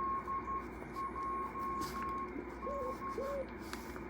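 Morse code (CW) heard through an amateur radio receiver: a steady tone of about 1 kHz keyed on and off into dots and dashes, over the hiss of band noise. It is a station calling CQ, a general call inviting any station to answer.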